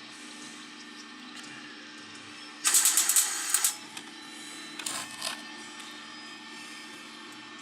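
Welder crackling in a burst of about a second, a little over a third of the way in, then a shorter, weaker burst around five seconds in, over a steady low hum.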